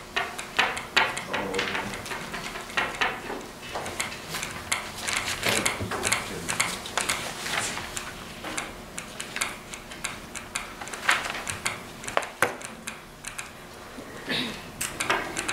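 Irregular clicks, taps and light clatter of small objects handled on classroom tables, in a small, lively room.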